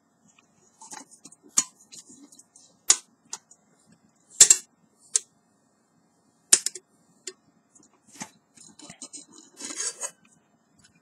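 Metal camping pots, pan and lid from a nesting cookset being handled and pulled apart: a series of sharp clinks and clanks, loudest about four and a half seconds in, with a quick rattling scrape near the end.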